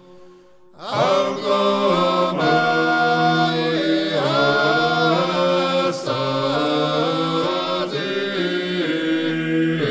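Georgian Orthodox church chant: an unaccompanied three-part choir. After a brief pause the voices enter about a second in and hold sustained chords that shift together from one to the next.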